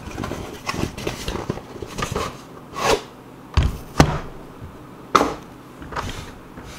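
Handling noise as the next cardboard box of graded cards is opened and gone through: rubbing and rustling broken by several sharp knocks, the loudest a little past halfway and another about five seconds in.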